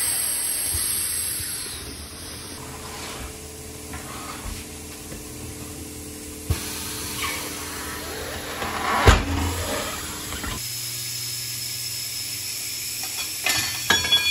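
Pneumatic bead breaker on a tyre-changing machine pressing against a large off-road tyre: air hissing at first, and a sharp bang about nine seconds in. There are a few clunks near the end as the tyre is handled.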